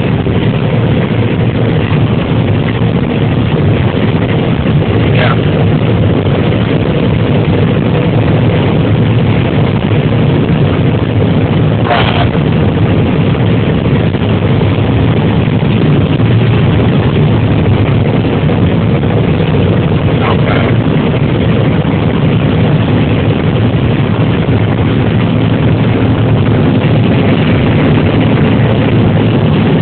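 John Deere 9770 combine running steadily under harvest load, a constant heavy engine and machinery hum heard from the cab. A few brief high squeaks sound about 5, 12 and 20 seconds in.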